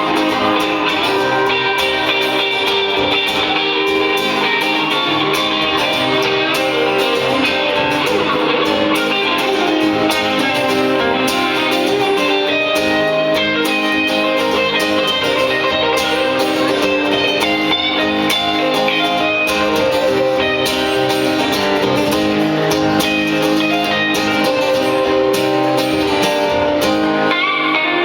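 A live band plays an instrumental stretch of a song, with guitar to the fore and no singing. The music runs steadily and loudly throughout.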